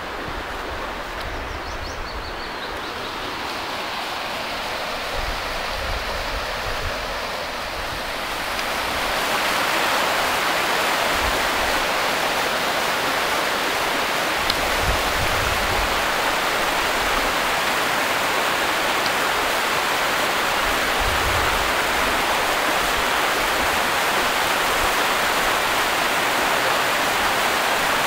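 Shallow river water rushing over stones, a steady hiss that grows louder about nine seconds in and then holds level.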